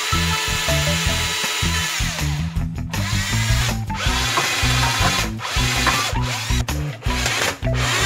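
Cordless drill boring into a small wooden block, running in spurts with short stops between them. A steady beat of background music runs underneath.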